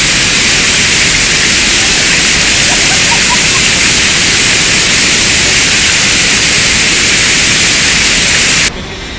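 Steady roar of the Horseshoe Falls at Niagara close up, a loud hiss of falling water that cuts off suddenly near the end.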